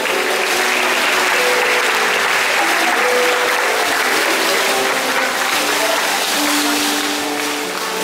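Large crowd of spectators clapping steadily, with background music playing under the applause.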